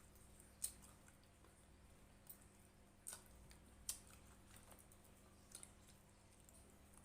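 Quiet eating sounds: a person chewing fried chicken, with about five short, sharp crunchy clicks spread over a few seconds.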